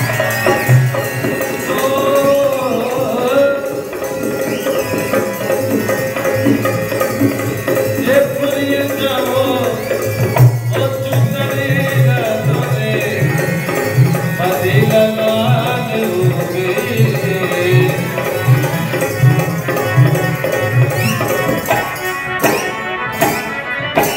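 Live Rajasthani folk music: a hand drum beats a steady rhythm under a wavering melody line, accompanying the marionette's dance.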